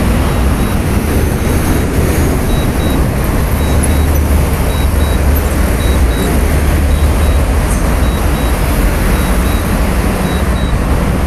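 Steady roadway traffic noise from a busy highway: a constant rumble of passing cars, buses and trucks, without any distinct single event.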